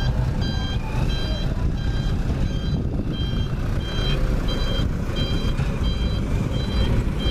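Reversing alarm on a heavy construction vehicle beeping, about one and a half beeps a second with a short break partway through, over the steady low rumble of a diesel engine.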